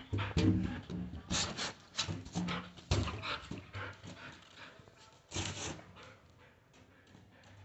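A puppy pawing and mouthing a large inflated balloon: irregular rubbery squeaks, scrapes and soft thumps of the balloon, with the dog panting. The sounds are busiest in the first few seconds, with one more flurry near the end.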